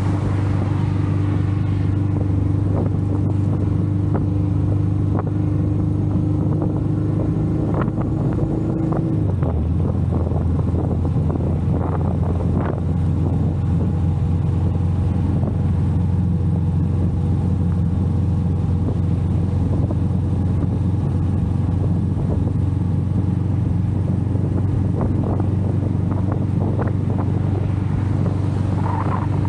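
Royal Enfield Meteor 350's single-cylinder engine running at a steady cruise, with wind and road noise around it. The engine note drops slightly about nine seconds in and then holds steady.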